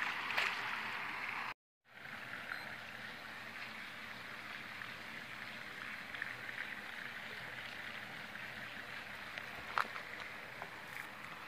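A small splash in the water at the start. It is followed by a steady, even rush of flowing water, with one faint knock near the end.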